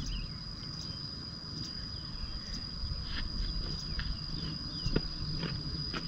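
A steady high-pitched insect call, a cricket or cicada, carries on without a break. Faint short chirps and a few soft clicks sit over it.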